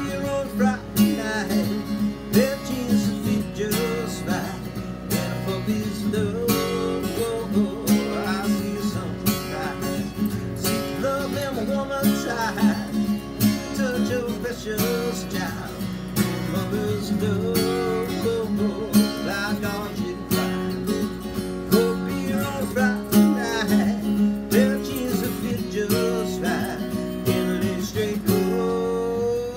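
Acoustic guitar strummed steadily, with a voice rising and falling over it.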